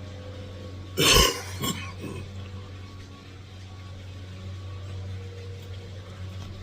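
A smoker's cough: one hard cough about a second in, then a smaller second cough just after, over a steady low hum.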